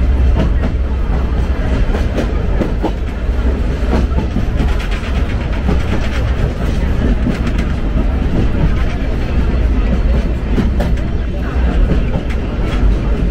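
Sagano Romantic Train's sightseeing trolley cars running along the track, heard from aboard: a steady heavy low rumble with the clack of wheels over the rails.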